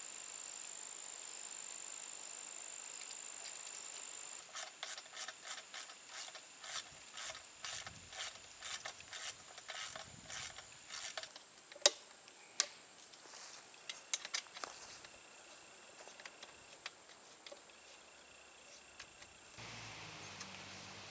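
Ratchet wrench clicking in quick runs, about three clicks a second, as bolts on a metal light-mounting bracket are tightened, with two sharper, louder clicks near the middle. A steady high insect trill carries on in the background.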